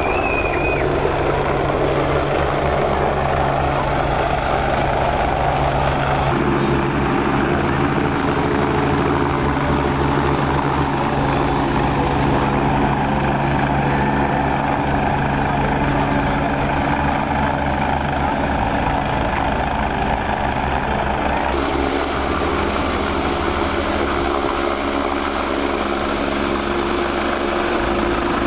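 Helicopter flying low and close: a loud, steady rotor beat with engine tones that shift in pitch about six seconds in and again about twenty-two seconds in.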